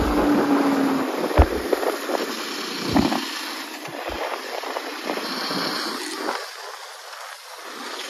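Wind noise from riding a motorcycle: a steady rush of air over the microphone with irregular low thumps of buffeting, easing off for a moment near the end.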